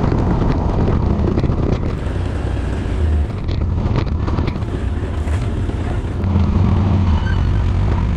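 ATV engine running as the quad rides over a rocky gravel trail, with wind on the microphone and occasional knocks from the rough ground. The engine gets quieter about three seconds in and louder again a little after six seconds.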